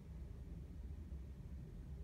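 Faint steady low rumble of room noise, with no distinct sound events.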